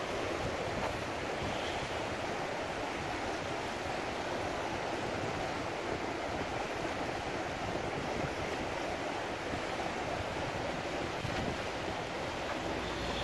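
Flood-swollen river rushing past the bank: a steady rush of fast-flowing water.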